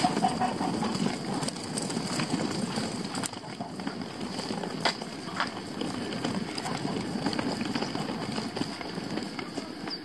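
Footsteps walking at a steady pace on a lane of paving stones, with a continuous scuffing rustle and a few sharp ticks.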